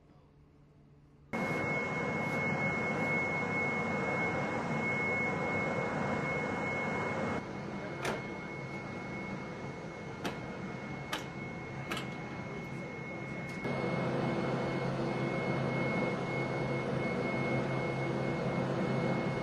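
Steady flight-line machinery noise with a constant high whine, cutting in suddenly about a second in. The level drops about halfway through, then rises again near the end, with a few sharp clicks in the quieter stretch.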